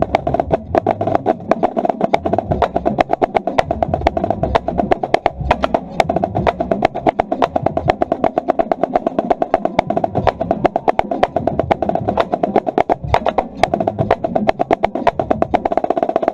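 Marching drumline playing a cadence, heard from right at one snare drum: a dense, steady stream of fast, crisp snare strokes over a low drum pulse, with no break.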